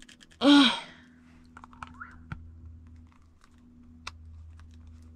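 A short voiced grunt of effort about half a second in, then faint clicks and fumbling as a stuck superglue tube cap is worked open with the teeth.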